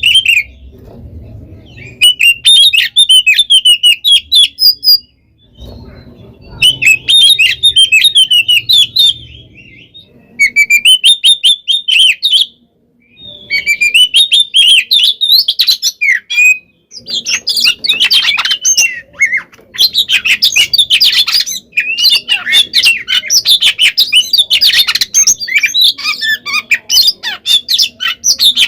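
Oriental magpie-robin (kacer) singing loudly: rapid bursts of varied chirps, whistles and harsh notes in phrases a few seconds long, broken by short pauses, then nearly continuous over the last ten seconds. This is the bird's full-voiced fighting song.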